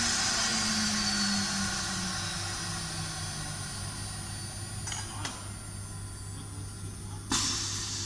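CNC router spindle winding down after a cut. Its whine falls slowly in pitch and the machine noise fades. Two light clicks come about five seconds in, and a short, loud hiss comes near the end.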